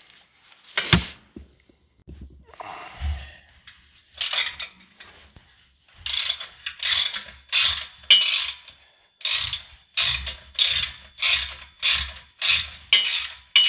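Hand socket ratchet wrench backing out an exhaust mounting bolt on a motorcycle. A few scattered clinks come first, then steady ratcheting strokes about twice a second from about six seconds in.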